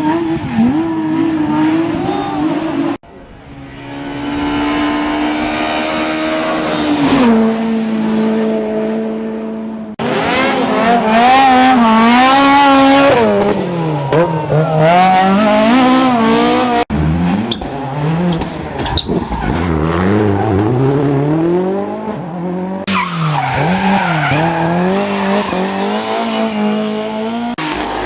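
Rally cars driven hard on stages, in a string of short clips: engines revving up and down through gear changes, with one car running up to a high note and dropping in pitch as it passes about seven seconds in. The sound changes abruptly several times as one car gives way to the next.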